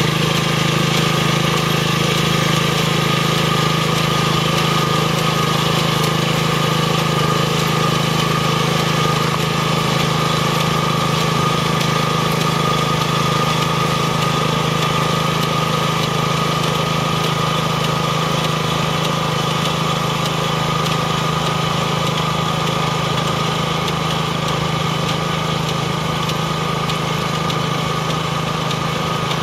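Riding rice transplanter's small engine running steadily as the machine plants seedlings in a flooded paddy, getting a little quieter near the end as it moves away.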